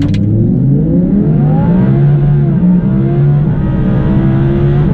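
Twin-turbocharged V10 of a tuned Audi R8 accelerating, its pitch climbing steadily, dipping briefly about two and a half seconds in, then rising again.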